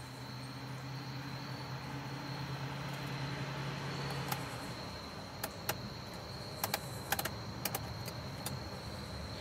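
Faint low drone of a distant bus's diesel engine coming up the road, with a steady high insect buzz throughout. The low drone fades out about halfway, and a handful of sharp ticks follow in the second half.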